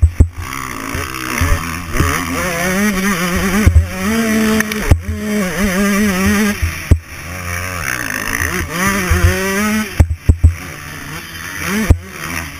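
Dirt-bike engine revving hard and easing off again and again as it is ridden over a rough motocross track. The pitch climbs and drops with the throttle, and it falls off briefly twice, with sharp knocks and wind buffeting on the mounted camera.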